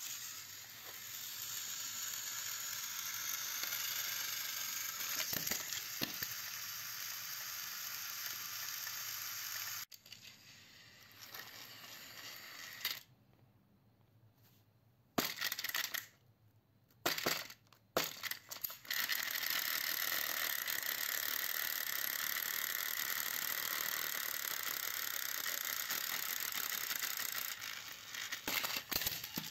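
Plarail battery-powered toy locomotive (Hiro) running along plastic track, its small motor and gears making a steady high whir. The whir drops away for several seconds in the middle, broken by a few sharp clicks and knocks, then runs steadily again. Near the end a rattling clatter comes as the train tips off the end of the track.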